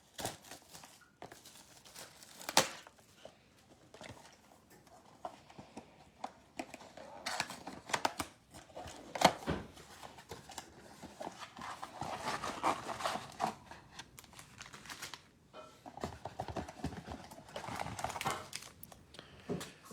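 A Panini Contenders football mega box being unwrapped and opened by hand: plastic wrap crinkling and tearing, cardboard rustling, and scattered irregular clicks and knocks as the packs are handled.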